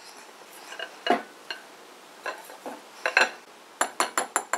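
Ceramic bowl and china plate clinking and knocking together as a bowl of fried rice is covered with the plate and turned over, with a run of four quick, ringing knocks on the upturned bowl near the end.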